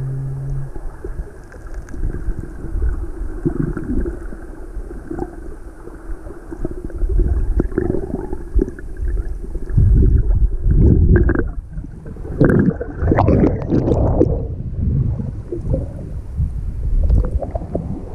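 Sea water sloshing and splashing around a camera held at the surface as small waves wash over it, mostly low and irregular. The splashing grows heavier from about ten seconds in, with several loud surges.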